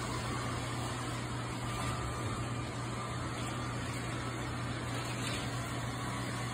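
A steady low hum with an even hiss over it, like a room fan or air conditioner running.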